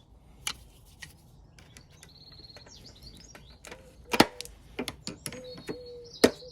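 Glass mosaic tiles snapping along their scribe lines as they are broken off with tile nippers: a few small sharp clicks, then two loud cracks about four seconds in and near the end.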